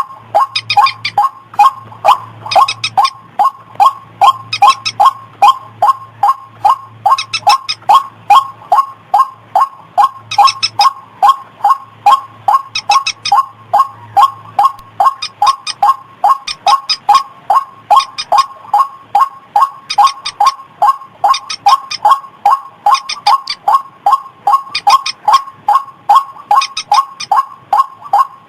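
White-breasted waterhen (ruak-ruak) calls from a lure recording: a steady run of loud, evenly repeated notes, about three a second, with higher notes joining in every two seconds or so.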